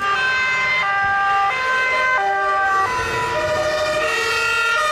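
Two-tone sirens of a convoy of German fire engines, several sirens overlapping, each alternating between a high and a low note about every three-quarters of a second.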